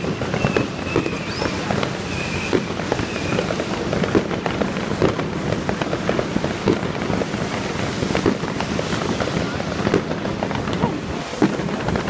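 Many New Year's fireworks and firecrackers going off all around at once: a dense, irregular crackle of sharp bangs and pops.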